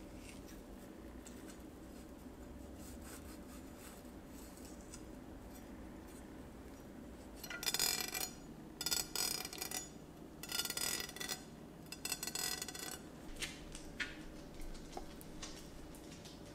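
Metal scraping and rubbing against a hard surface in four short strokes, each about a second long and carrying a faint ringing, over a low steady hum, followed by a few light ticks.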